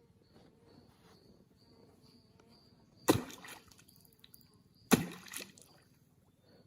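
Two sharp splashes on the water about two seconds apart: a lead sinker on a cane fishing pole being slapped onto the surface to imitate juari fruit dropping from the tree and attract fish.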